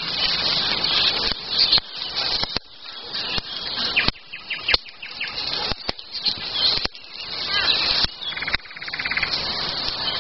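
Wild songbirds chirping and singing, with many sharp snaps and clicks through it. Near the end comes a short, rapid rattling trill.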